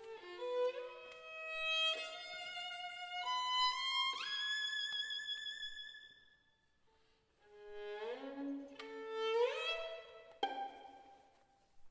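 Solo violin playing a slow line that climbs with upward slides to a high held note, then stops about six seconds in. A second rising phrase follows, with a sharp accented note about ten and a half seconds in that rings on in the church's echo.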